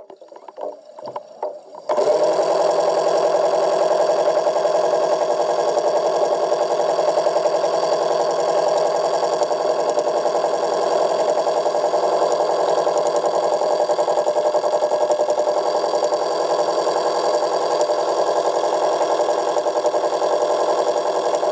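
Underwater scooter's electric motor running at a steady pitch, a constant mechanical whine that starts suddenly about two seconds in after a few faint knocks.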